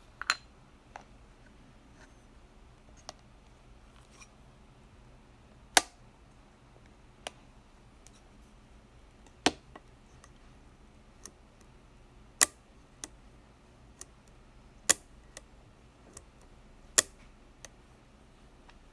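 Leaf shutter of a 1948 Konica I rangefinder camera being cocked and fired over and over: six sharp clicks a few seconds apart, with fainter clicks of the levers between them.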